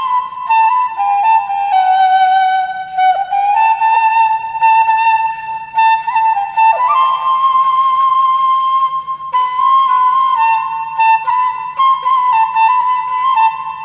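Background music: a solo flute melody of long held notes that step up and down in pitch.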